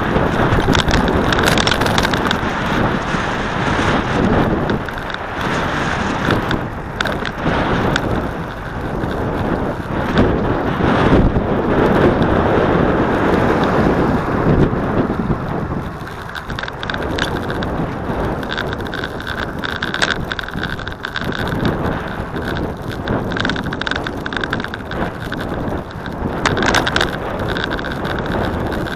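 Wind buffeting the microphone of a camera travelling along a road, over a steady rumble of wheels on the road surface, with scattered knocks from bumps. It eases off a little about halfway through.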